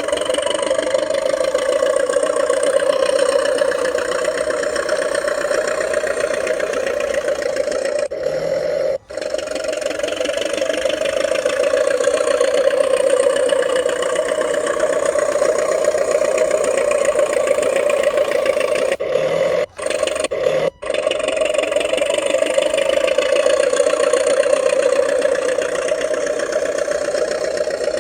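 RC model DT-54 bulldozer running steadily as it works in snow, a continuous engine-like drone that cuts out briefly about a third of the way in and twice more past the middle.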